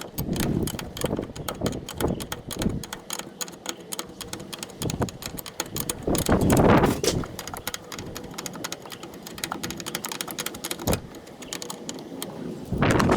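Quick light metallic clicking and clinking of hand tools and fittings as a brake master cylinder is fitted onto its booster, with a louder clunk about halfway through.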